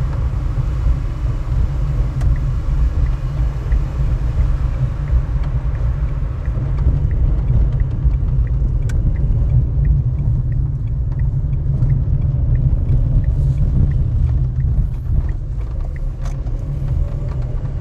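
A car driving along a tarred road: a steady low rumble of tyres and engine, with faint ticks about twice a second.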